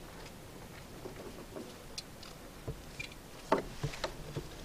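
Faint scattered clicks and light taps of a screwdriver tightening a wire into the screw terminal of a solar charge controller, with a few louder clicks about three and a half seconds in.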